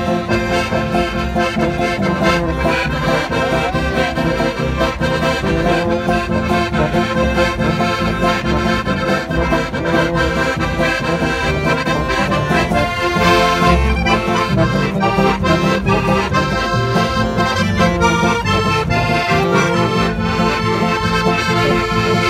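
Live folk band playing a lively tune: two piano accordions carry the melody over a plucked upright double bass and a brass horn, steady and full throughout.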